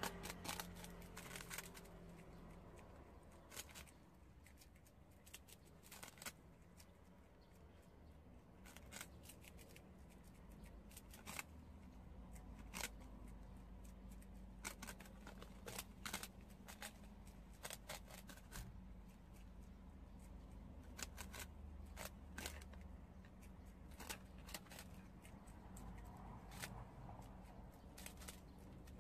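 Prairie dogs gnawing puffed rice cakes: irregular crisp crunches and snaps, sometimes several in quick succession, over a faint steady low hum.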